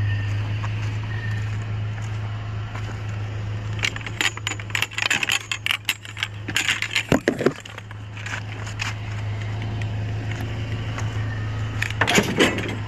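Metal ski poles and tubes clinking and clattering against each other as they are picked up, a few seconds in and again briefly near the end, over the steady low hum of an idling pickup truck.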